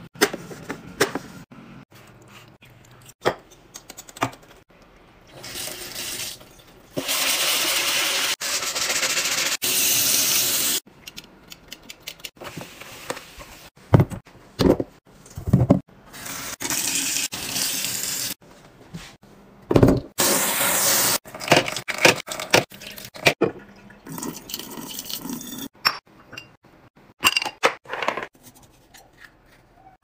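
Water from a kitchen tap running into a sink in several bursts of a few seconds each, with sharp knocks and handling sounds in between.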